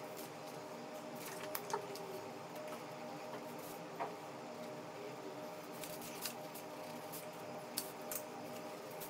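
Drawing at a table: a sheet of drawing paper shifted and rustled, with a few short sharp taps and clicks as the pencil and oil pastels are handled, over a steady background hum.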